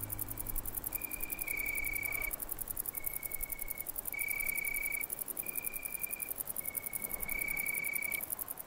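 Crickets chirring in a rapid, very high pulsing, with a slow series of high held tones, each a little under a second and shifting slightly in pitch, that stop shortly before the end.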